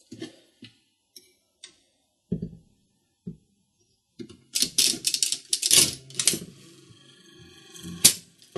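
Stripped-out workings of a mechanical one-armed-bandit slot machine being run: a few light metallic clicks, then about two seconds of rapid clicking and clattering from the mechanism, and one sharp click near the end.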